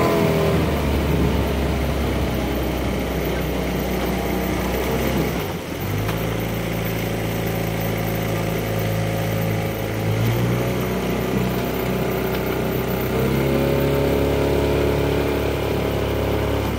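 Outboard motor of a coaching launch running steadily at low speed. Its note dips briefly about five and a half seconds in, then settles, and shifts slightly higher about thirteen seconds in.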